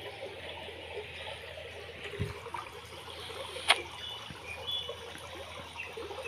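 Steady trickle of running water in an otter pool, with a single sharp click about two thirds of the way through.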